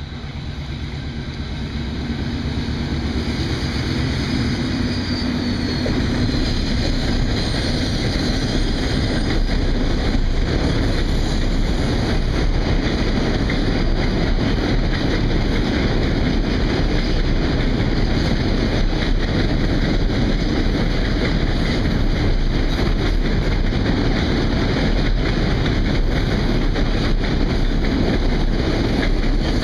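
Excursion passenger train crossing a railway bridge, a steady rumbling noise that grows louder over the first few seconds and then holds.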